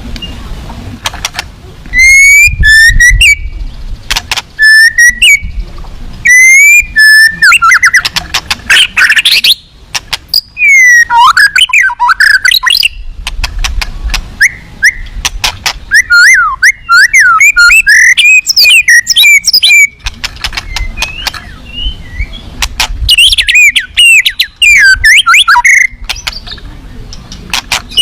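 White-rumped shama singing loudly: a rapid run of phrases of sliding whistles and quick chattering notes with short pauses between them. Its song is full of filler phrases (isian), which are mimicked calls of other birds.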